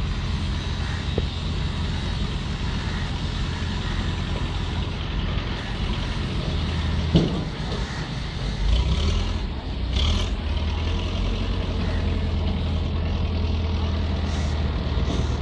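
Heavy vehicle engine running steadily with a low rumble and hum, with a brief knock about seven seconds in.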